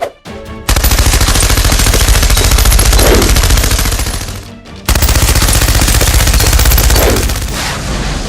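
Rapid automatic gunfire, a machine-gun-style sound effect for the Nerf blasters, in two long sustained bursts: the first starts about a second in, and the second follows after a brief break near the middle.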